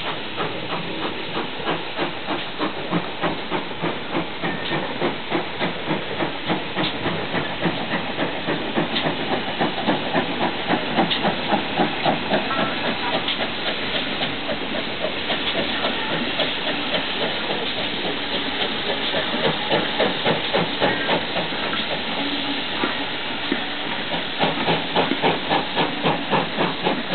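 GWR steam locomotives in steam, a steady hiss of escaping steam with an even, rapid pulsing beat of a few strokes a second.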